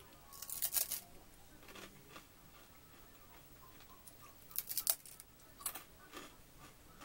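Crunching as a WASA whole grain crispbread is bitten and chewed: a burst of loud crunches about half a second in and another around four and a half seconds in, with softer chewing crunches after each.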